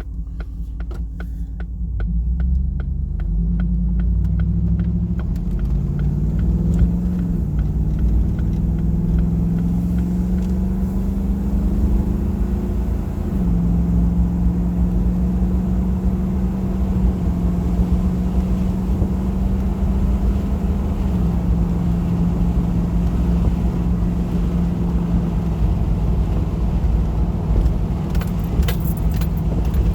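1995 Range Rover P38's V8 engine pulling away and accelerating through the automatic gearbox's upshifts in normal mode. Its pitch climbs, drops at a gear change about seven seconds in, climbs again and then settles to a steady cruise. Quick, evenly spaced ticking sounds over the first few seconds.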